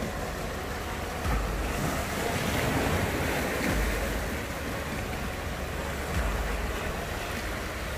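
Small sea waves washing and splashing over a low rocky breakwater, with a swell of surf about two to three seconds in. Gusts of wind buffet the microphone now and then.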